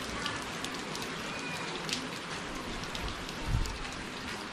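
Rain falling on a wet concrete path, a steady hiss with scattered sharp drop ticks. A low thump comes about three and a half seconds in.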